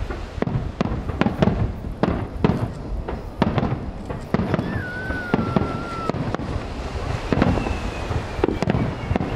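Aerial fireworks shells bursting in rapid succession: a dense run of sharp bangs, two or three a second, over a continuous low rumble, with a short wavering whistle about five seconds in.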